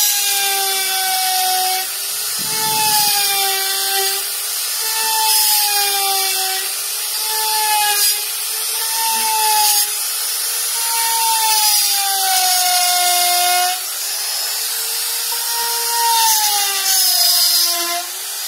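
Handheld electric rotary carving tool (die grinder) running at high speed with its bit cutting into the wooden relief panel: a steady motor whine over a rasping hiss, the pitch dipping every second or two as the bit bites into the wood and recovering as it eases off.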